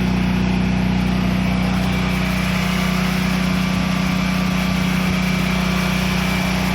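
Front-loading washing machine on its spin cycle: its motor and drum spinning fast, a steady hum with an even whir that holds level throughout.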